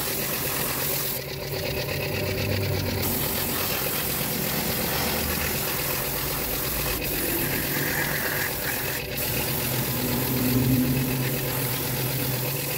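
Air-powered gravity-feed spray gun hissing as it sprays paint onto a brake drum, over the steady running hum of an air compressor. The spray hiss drops back briefly about a second in and again for a moment around nine seconds in.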